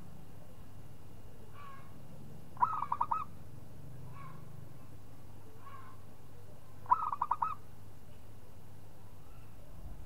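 Zebra dove (perkutut) cooing: two song phrases, each a sharp opening note followed by a quick run of about five staccato coos, with fainter short calls between them.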